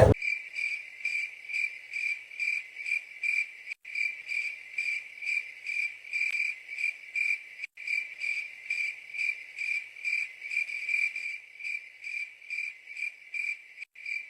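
Cricket chirping steadily, about two chirps a second at one high pitch. It starts abruptly the moment the speech cuts off, as an edited-in cricket sound effect.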